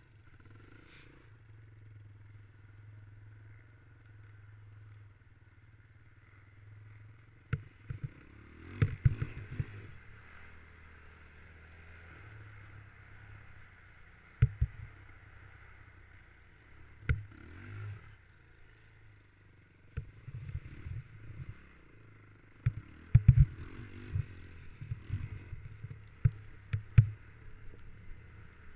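Dirt bike engine running steadily at low trail speed, with repeated sharp knocks and clatter as the bike jolts over the rutted snow, most frequent in the last third.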